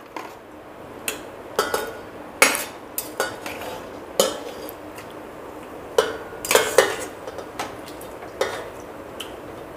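A perforated steel ladle and steel plate clink and scrape against a pressure cooker as raw mutton pieces are tipped into the cooker. The clinks come irregularly, about a dozen in all, some ringing briefly.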